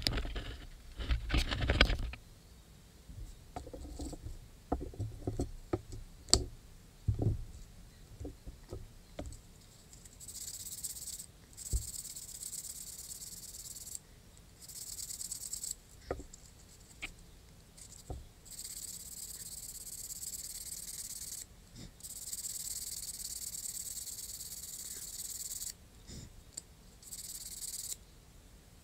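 Sandpaper rubbed by hand over an old wooden handle: a dry, high rasping hiss in spells of one to three seconds with short breaks, starting about a third of the way in. Before that come scattered light knocks and clicks from handling the pieces.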